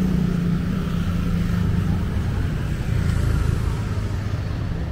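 Motor vehicle engine running on the street, a steady low hum that fades about two seconds in while low traffic rumble carries on.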